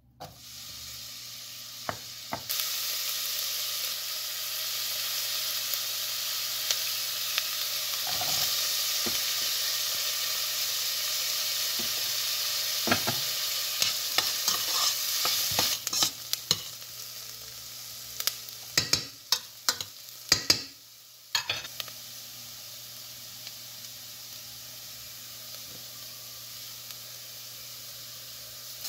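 Chopped onion and diced carrots sizzling in hot oil in a stainless steel pot as they are sautéed. The sizzle starts suddenly as the onion goes in and grows louder a couple of seconds later; in the middle a spoon stirring the vegetables clicks and scrapes against the pot, and the sizzle settles to a quieter hiss in the last third.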